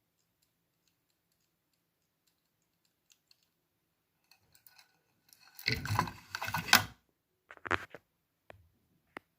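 After a near-silent stretch, a few faint clicks, then a loud burst of knocking and rattling about six seconds in, followed by several single sharp clicks at uneven intervals: handling clatter.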